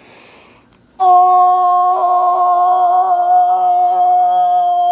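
A person's voice holding one long, steady note for about four seconds, starting about a second in.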